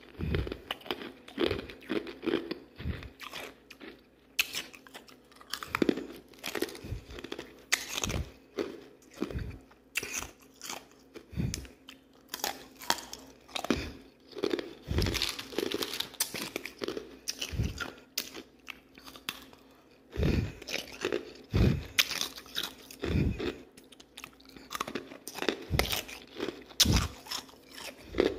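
Ice being bitten and chewed: a continuous run of irregular crunches and crackles, often a few a second.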